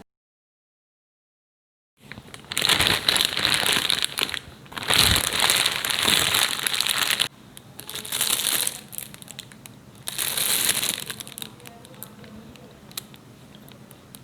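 Crinkling and rustling of a plastic food packet being handled, in three long bursts after a couple of seconds of silence, then a few faint small clicks.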